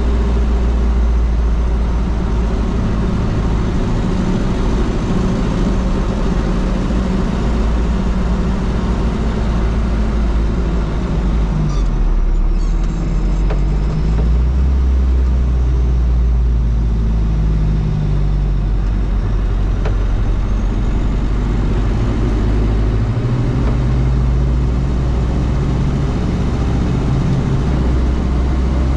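Toyota Land Cruiser BJ73's 13B-T four-cylinder turbo-diesel engine running while the truck drives, over a steady haze of road noise. The engine pitch shifts up and down a few times, and there is a short clatter about twelve seconds in.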